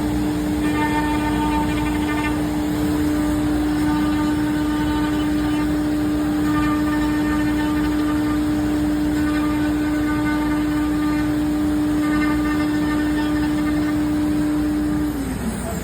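CNC router spindle running at a steady high speed with a constant hum, while higher whining tones come and go every second or two as the machine moves. About fifteen seconds in, the spindle switches off and its hum slides down in pitch as it spins down.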